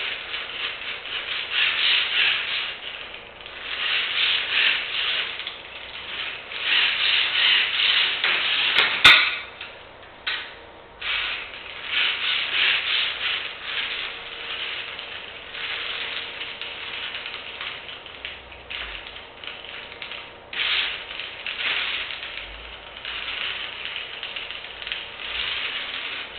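Lego train's electric motor and wheels running on the track in repeated surges a second or two long, as the train drives back and forth to keep an inverted pendulum balanced under PID control. A sharp click about nine seconds in.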